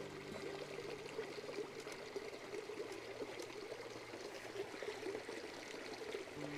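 Small woodland stream running and trickling steadily.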